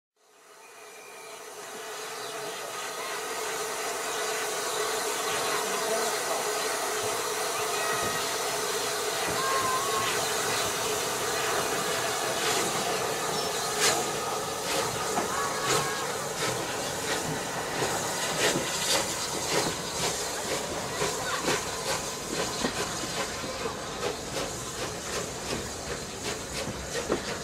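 SR rebuilt 'West Country' class 4-6-2 steam locomotive No.34028 Eddystone departing and passing close by, with a loud steady hiss of steam. From about halfway in, the coaches roll past with wheels clicking over the rail joints, the clicks coming faster near the end.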